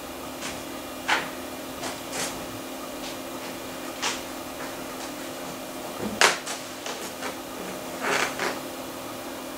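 Hard drive in a Macintosh Plus spinning with a steady hum while being surface-tested. Its heads seek with irregular clicks scattered through, the loudest about six seconds in and a quick pair near the end.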